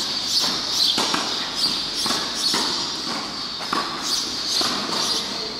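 Tennis shoes stepping and scuffing on a clay court, with a racket hitting a tennis ball during a rally. Sharp knocks come roughly every half second over a steady gritty scuffing.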